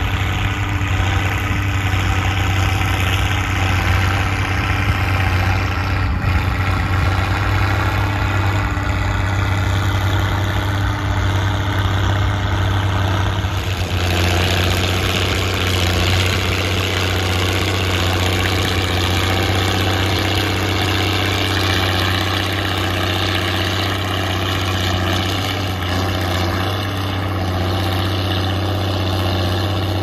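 Case IH 1056 XL tractor's straight-piped six-cylinder diesel engine running steadily under load while ploughing. The tone turns brighter about halfway through.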